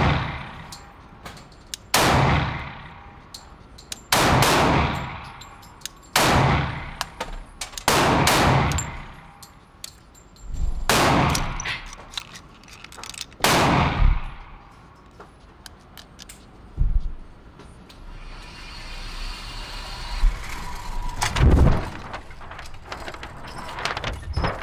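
Gunshots inside an indoor shooting range, each with a long echoing decay. About nine shots come spaced one to two and a half seconds apart, then a fainter report, a stretch of steady hiss and one more shot late on.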